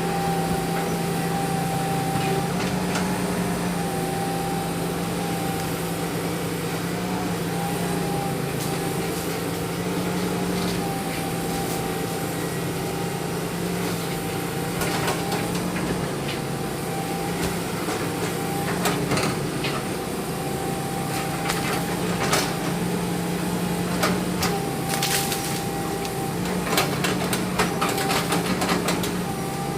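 Excavator's diesel engine running under working load, its note stepping slightly up and down, with a steady whine above it. In the second half, repeated sharp clanks and knocks.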